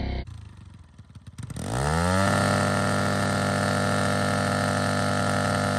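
Small dirt bike engine revved up about one and a half seconds in, after a quiet start with a few ticks, then held wide open at a steady high pitch.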